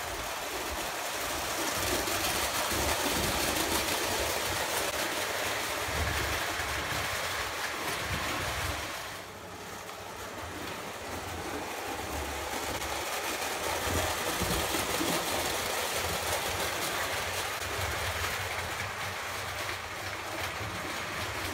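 Lionel O gauge tinplate toy trains running on a layout: a steady rumble and clatter of wheels on three-rail metal track, dipping briefly about nine seconds in.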